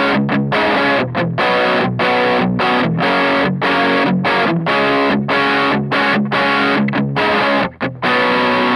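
Distorted electric guitar playing a chopped, stop-start chord riff, then striking a final chord about eight seconds in and letting it ring, recorded through the FiFine K688 dynamic microphone.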